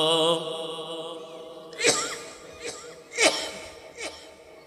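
A man's voice chanting a drawn-out sermon line over a PA ends about half a second in and dies away. Three brief sharp vocal sounds, each falling in pitch, follow through the microphone.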